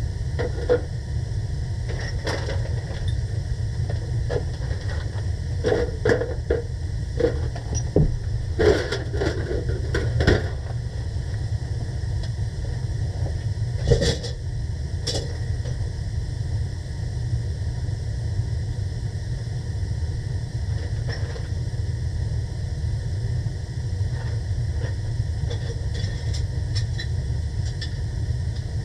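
Steady low rumble throughout, with scattered clinks and knocks of hand tools being handled and packed away. The sharpest knock comes about fourteen seconds in.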